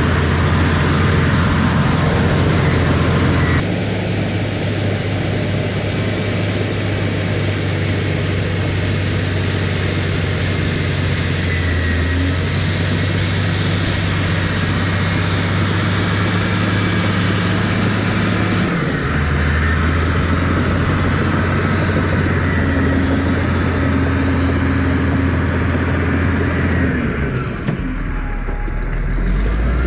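Engine of a heavy earthmoving machine running under load while pushing topsoil, its pitch stepping up and down a few times as the load and throttle change, with a brief dip near the end.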